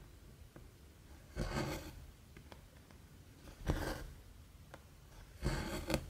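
Cotton embroidery floss pulled through 14-count cross-stitch fabric three times, about every two seconds, each pull a short swish. Faint needle ticks fall between the pulls.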